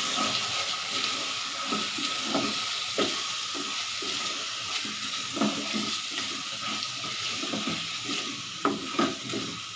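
Tomato-onion masala sizzling in oil in a stainless steel pot while a metal spoon stirs it, with a steady hiss under irregular scrapes and knocks of the spoon against the pot. The two loudest knocks come near the end.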